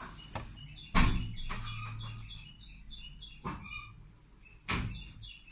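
A small bird chirping rapidly, about three short chirps a second, over a few sharp knocks of the blender jug and metal pudding tin, the loudest about a second in.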